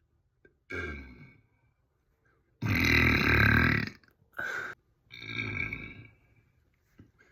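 A person burping four times with pauses between: a short burp, then the loudest and longest, over a second, about two and a half seconds in, a brief one, and a medium-length one.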